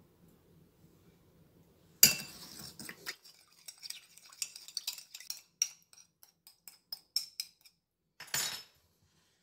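Metal spoon stirring the sugar, salt and rice-vinegar seasoning in a small glass bowl, clinking against the glass. A sharp clink comes about two seconds in, followed by a quick run of light, ringing ticks, and a brief rustling scrape near the end.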